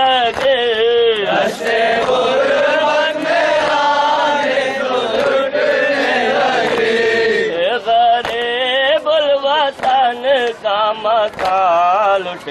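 A group of men chanting a Muharram nauha, a lament for Husain, with wavering sung lines. Repeated sharp slaps of hands striking chests (matam) keep time under the chant.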